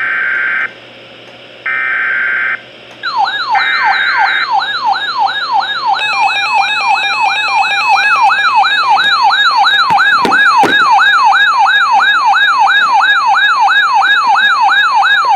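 Emergency Alert System data header: three short bursts of buzzy digital tones, a second apart. Then a loud warbling alert tone begins, sweeping up and down about three times a second.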